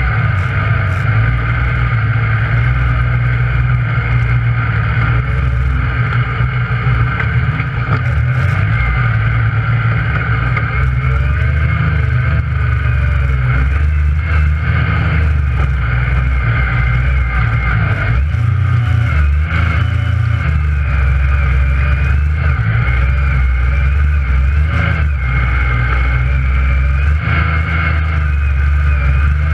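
Yamaha YXZ1000R side-by-side's three-cylinder engine running under load inside the cab, the revs rising and falling as it is driven.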